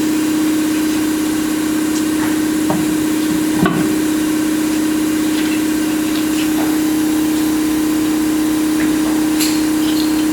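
Steady machine hum at one fixed pitch, even in level throughout. A few light metallic clicks and knocks of tools sound over it, the clearest about a third of the way in.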